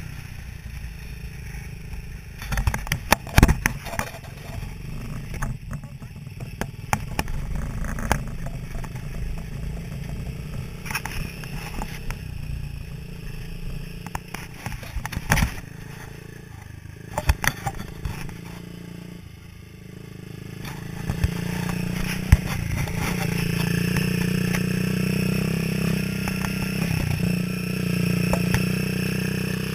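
Small petrol engine of a mini buggy running under way, with knocks and rattles from the bumpy ride over dirt and paving stones. The engine gets louder about two-thirds of the way through.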